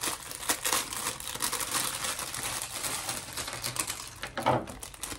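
Small plastic popsicle sticks and their packaging being handled, making irregular rapid clicking and crinkling, with one louder knock about four and a half seconds in.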